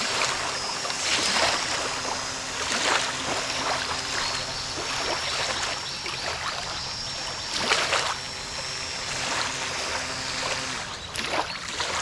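Small waves washing repeatedly onto a sandy lake shore, the strongest about eight seconds in. Under them is the steady hum of a homemade radio-controlled boat's motor under way, which changes pitch near the end.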